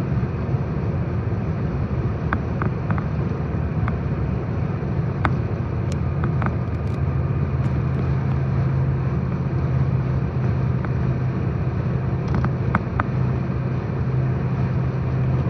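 Road noise of a car cruising at highway speed, heard from inside the cabin: a steady drone of tyres and engine with a low hum that grows a little stronger about halfway through. A few faint clicks come through it.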